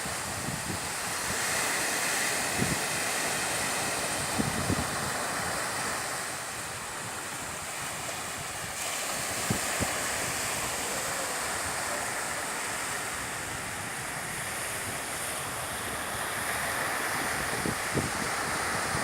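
Sea waves washing in steadily with wind, the noise swelling and easing gently, and a few brief low thumps of wind buffeting the microphone.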